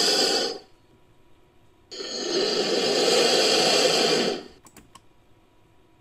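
Serpent-monster sound effect: a breathy hiss that stops about half a second in, then a second, longer hiss lasting about two and a half seconds, followed by a couple of faint clicks.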